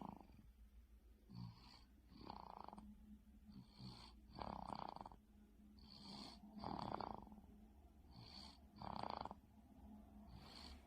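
A 5-month-old baby snoring faintly in deep sleep: a soft snoring breath about every two seconds, each a short sound followed by a longer one.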